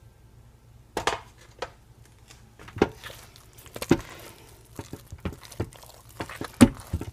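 Thick hot-process soap paste being stirred in a ceramic crock-pot, with irregular knocks of the utensil against the pot and wet squelches of the paste. The loudest knock comes near the end. The soap is being worked down to keep it from rising over in a soap volcano.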